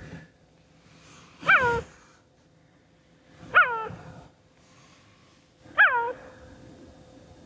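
Male cheetah calling: three short yelping calls about two seconds apart, each sliding down in pitch. It is the cheetah's long-distance contact call; he is a lone male who has lost his coalition partner.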